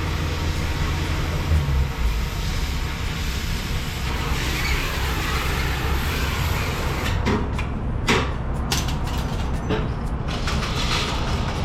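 BMW 335i's turbocharged straight-six running with the rear muffler removed: a steady low drone from the open exhaust, with a few short knocks or clunks about seven to nine seconds in.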